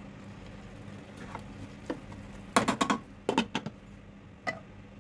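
Spatula stirring in a non-stick cooking pot and knocking against it in two quick clusters of sharp clacks, then a glass pot lid clinking as it is set on. A steady low hum runs underneath.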